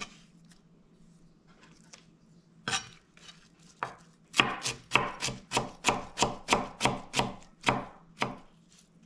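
Chef's knife slicing ginger root on a wooden cutting board. After a quiet start come two single cuts, then a steady run of knife strokes, about three a second, that stops shortly before the end.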